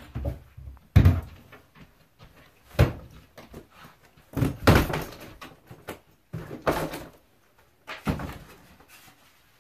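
A door bangs shut about a second in, followed by about four more knocks and clatters, a second or two apart, of things being handled and set down.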